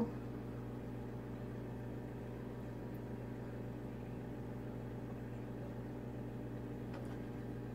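Steady low mechanical hum with several held tones and no change in level: background hum from a running appliance.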